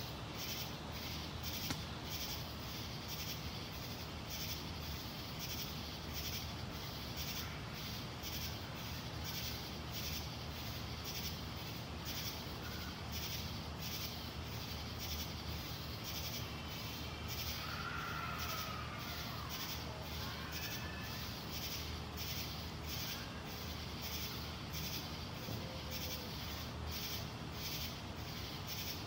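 Night-singing insects calling in a steady, high-pitched pulsing chorus, about two to three pulses a second, over a low steady hum.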